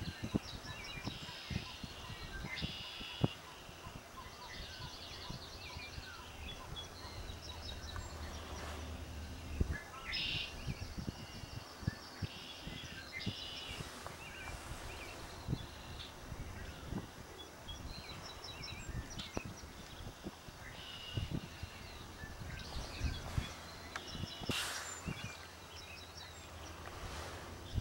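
Small songbirds singing in short, rapid trilled phrases, high-pitched and repeating every few seconds, over a low steady rumble with a few sharp knocks.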